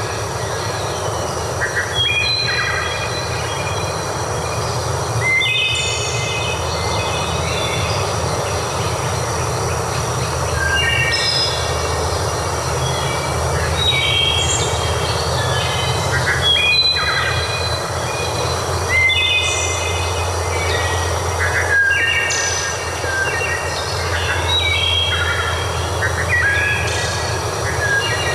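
A steady rush of flowing water, with birds singing short phrases of clear notes every second or two over it.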